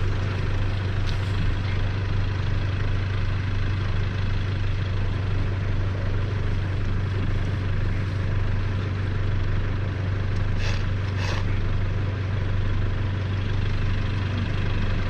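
An engine running steadily at idle, a constant low hum with no change in pace. Two short high-pitched sounds come about two-thirds of the way through.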